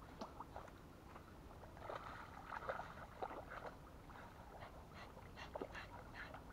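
Jagdterrier (German hunting terrier) whining and whimpering in a series of short, faint cries that fall in pitch. They cluster around the middle and again near the end.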